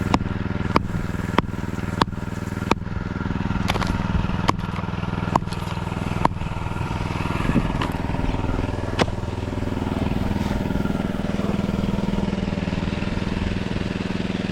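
An engine running steadily under a series of sharp knocks. The knocks come about one to two a second at first, then scattered, and stop about nine seconds in.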